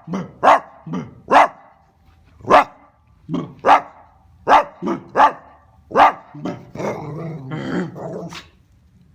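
Italian greyhound barking: about ten short, sharp barks over the first six seconds, then a longer drawn-out grumbling vocalization lasting about two seconds near the end.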